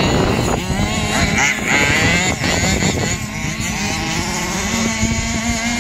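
Large-scale radio-controlled car's small petrol engine running, its pitch rising and falling as the throttle is worked, then holding steadier in the second half.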